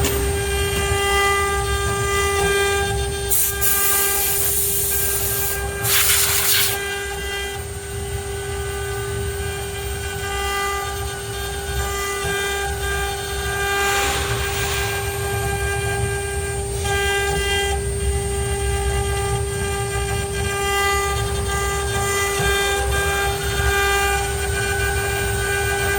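ART1325 CNC router running: a steady high whine with overtones over a low rumble, with brief louder rushes of noise a few seconds in and again around the middle.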